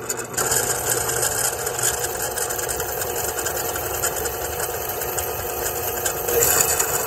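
Electric drill running steadily as a twist bit cuts through the wall of an aluminum tube, sending up curling chips. The steady motor drone takes on a brighter, hissier edge near the end.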